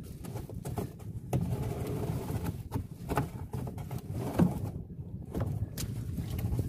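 A small fishing boat's diesel engine running steadily at a low idle, with a handful of short knocks and clunks as a rope is hauled in by hand over the gunwale.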